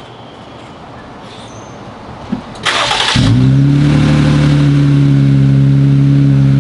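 Jeep Wrangler JL engine started with its muffler removed: a brief crank of the starter about two and a half seconds in, then the engine catches and settles into a loud, steady idle through the open, unsilenced exhaust.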